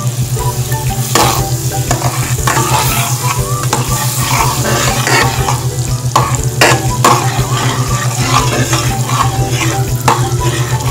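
Butter sizzling and bubbling as it melts in a hot aluminium wok, with a metal spatula scraping and knocking against the pan many times. A steady low hum runs underneath.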